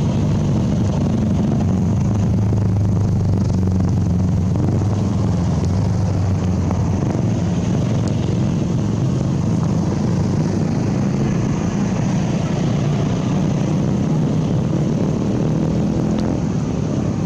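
Steady low rumble of a running engine, with a faint steady high hiss above it.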